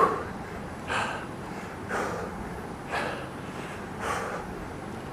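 A man breathing out hard, about one forceful breath a second, each breath timed with a bodyweight squat.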